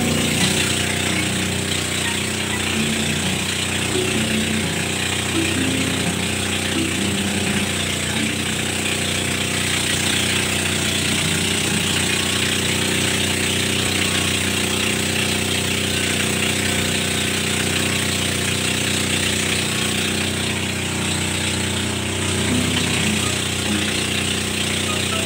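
Engine of a motorized bangka (Filipino outrigger boat) running steadily at an even speed.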